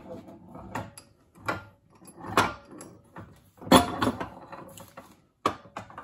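Irregular metal clanks and knocks from a cast bench vise as a stainless steel pipe and valve assembly is set into its jaws and the vise is worked, about five in all, the loudest a little under four seconds in.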